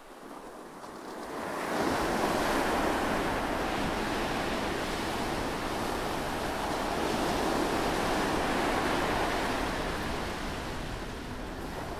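Ocean surf: small waves washing in on a beach, a steady rushing wash that swells up over the first two seconds and eases a little near the end.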